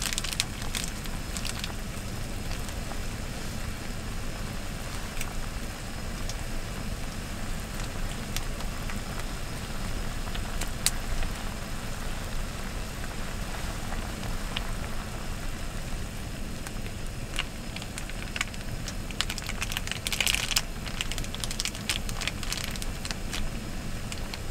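Hotpot broth boiling in a rectangular pot on a cassette gas stove: a steady bubbling hiss with scattered small pops and crackles, which get busier a few seconds before the end.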